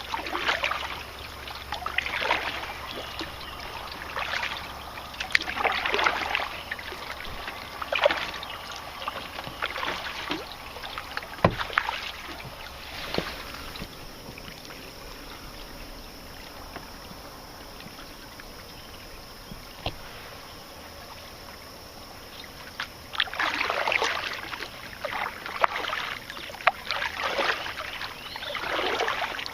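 Canoe paddle strokes splashing in river water, about one every two seconds. The strokes pause for several seconds midway, then resume in quicker succession near the end.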